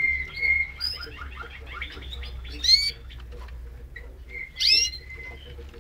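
Parisian Frill canaries singing: a held note, then rapid trills, with two loud rising notes, one near the middle and one near the end.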